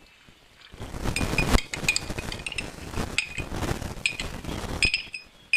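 A spoon scraping and clinking against the inside of a drinking glass as the last of the yeast mixture is tapped out over a plate of flour. It is a busy run of scraping and short ringing clinks, then one sharp clink at the very end.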